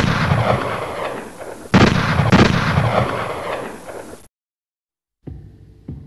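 Gunshot sound effects: one loud shot right at the start, then two more close together about two seconds in, each with a long echoing decay. The sound cuts off abruptly, and after a short silence a low throbbing hum with faint ticks begins near the end.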